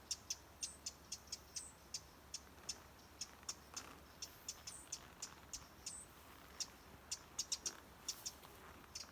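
A small bird hidden in a bush giving short, sharp, high chirps over and over, a few a second and irregularly spaced. These are alarm calls, which the listener takes for birds warning each other of a person close by.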